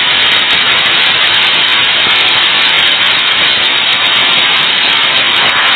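Battered chicken and shrimp deep-frying in a tray of bubbling oil: a loud, steady sizzle.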